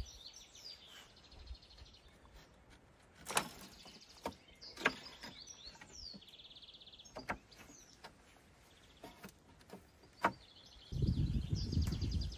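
Small birds singing, with repeated trills and chirps, and several sharp knocks or snaps scattered through. Near the end a much louder low rustling noise starts.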